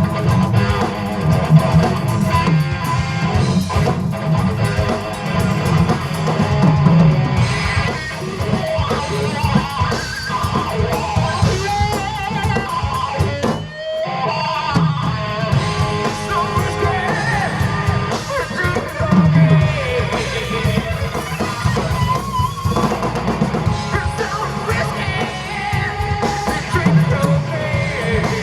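Live rock band playing: guitars and drum kit, with a singer. There is a brief break about halfway.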